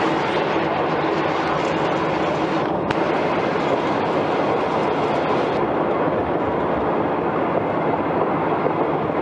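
Vintage passenger coach rolling along the track, heard from its open window: a steady running noise of wheels on rails. The upper hiss eases a little over halfway through.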